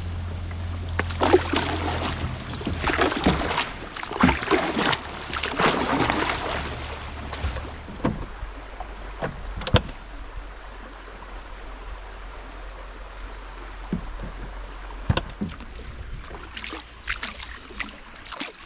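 Canoe paddle strokes dipping and splashing in shallow river water, dense for the first seven seconds or so, then quieter, with a few sharp knocks scattered through the rest.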